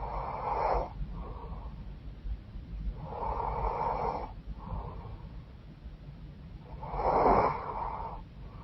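A woman snoring in her sleep through a blocked, runny nose: three loud snores, one about every three and a half seconds, each followed by a shorter, softer breath sound.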